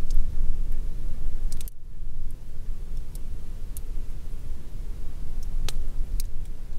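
Wind blowing across the microphone in uneven gusts, heavy in the low end, with a handful of sharp ticks from raindrops scattered through it. The wind noise cuts out abruptly for a moment just under two seconds in.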